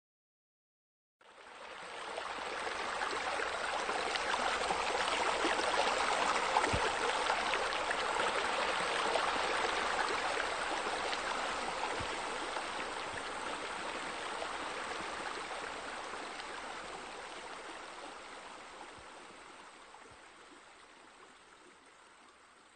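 Steady rushing of running water, like a stream or a spillover into a pool, fading in about a second in and slowly fading out toward the end.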